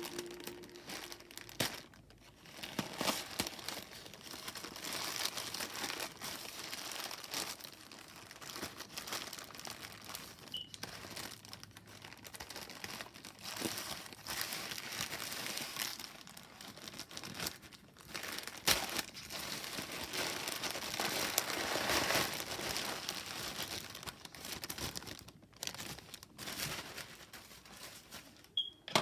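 Packaging being handled by hand: irregular crinkling and rustling with occasional tearing, as a parcel is unwrapped, with a few short pauses.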